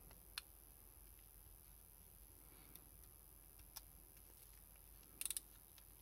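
A few faint, sharp clicks of small metal hand-tool parts being handled: a single click about half a second in, another near four seconds, and a quick run of four near the end.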